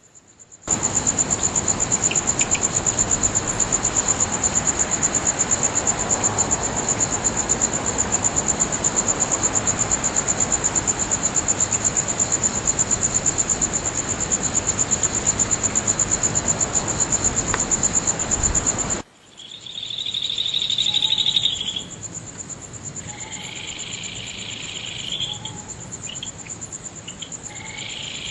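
Crickets trilling, a steady high-pitched pulsing song that continues throughout, under a loud steady rushing noise that cuts off suddenly about two-thirds of the way in. After the cut, frogs call in short bouts over the crickets.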